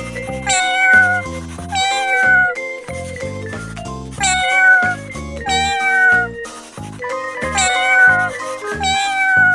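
Light background music with a cat's meow mixed in as a repeated sound effect: about six meows in three pairs, each one falling slightly in pitch.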